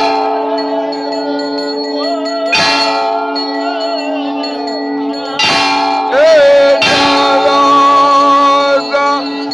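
Temple bells ringing steadily for the aarti, with voices singing the aarti over them and a few loud strikes. The singing gets louder about six seconds in.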